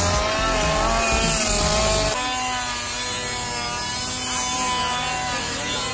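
Handheld die grinder with an abrasive bit grinding steel threads: a steady whine that wavers under load over a harsh rubbing noise, changing in tone about two seconds in.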